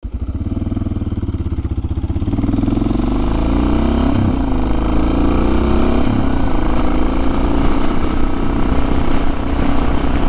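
Motorcycle engine running under way, its note climbing over the first few seconds as it pulls away, then holding a steady pace.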